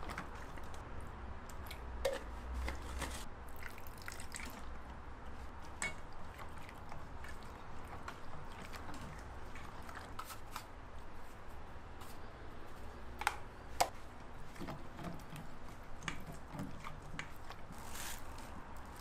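Wooden spoon stirring a thick red chili seasoning paste in a stainless steel bowl: soft wet squishing with many small scraping clicks, and two sharper clicks about two-thirds of the way through.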